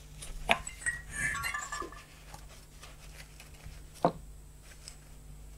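Light clinks and taps of a brush and hand tool against metal while soapy water is brushed onto the crankshaft seals of a Buran snowmobile's two-stroke engine during a pressure test. Two sharp clicks stand out, about half a second in and about four seconds in, with a few small ringing clinks between them.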